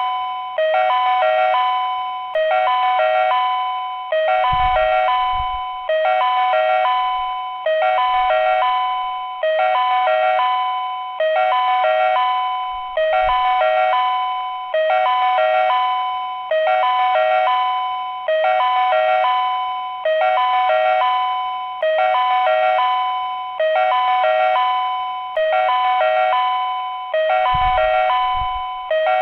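Ohmi Railway platform train-approach warning chime: a short electronic chime of a few tones, repeating about every 1.7 seconds, signalling that a train is approaching.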